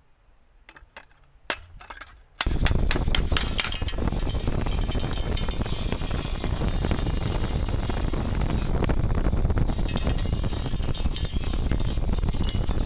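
A few light clicks and knocks, then about two and a half seconds in a loud power tool starts suddenly and runs steadily with a rough, even noise.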